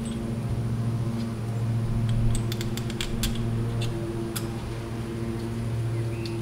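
A string of short clicks and taps from the EGR valve and its bolts being fitted to the intake by hand, most of them between about two and four and a half seconds in. A steady low hum runs underneath.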